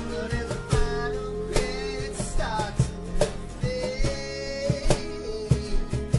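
A small band playing a song on strummed acoustic guitars, with a lead voice singing over them.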